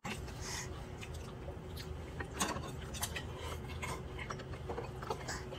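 Faint, scattered clicks and clinks of a spoon and bowls as a toddler feeds herself at a high-chair tray, over a low steady room hum.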